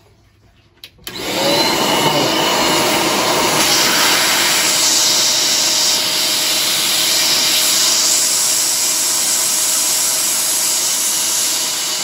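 MetroVac DataVac ESD-safe vacuum cleaner switched on with a click about a second in, then running steadily with a faint whine as its narrow nozzle draws air through a trace detector's sample inlet.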